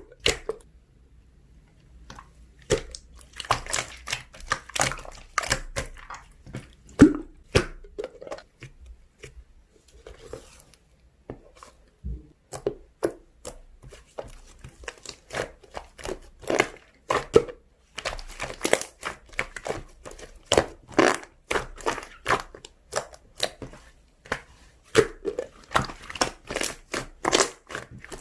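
Slime being squeezed, stretched and pressed by hand, making quick wet clicks and pops in clusters. It starts a couple of seconds in, pauses briefly about halfway, then runs densely to the end.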